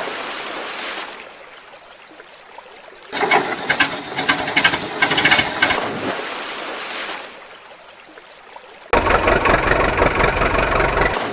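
An engine sound effect for the toy vehicles, running in two loud bursts that start about three and nine seconds in, with quieter gaps between them, over water splashing as the toys drop into the river.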